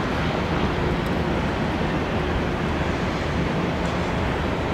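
Steady drone of a distant helicopter in flight, under a wash of wind and open-air noise.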